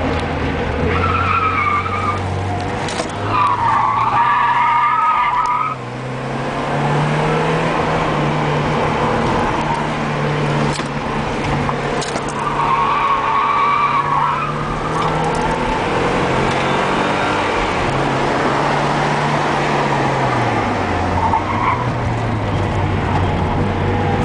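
Porsche 944S's four-cylinder engine, heard from inside the cabin, pulling hard with its revs rising and falling repeatedly through the laps. Tyres squeal three times in the corners: about a second in, for a couple of seconds around four seconds in, and again around thirteen seconds in.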